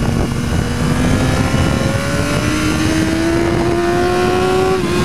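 BMW S1000R's inline-four engine pulling through a corner, its note rising slowly as the bike gains speed, then easing slightly near the end.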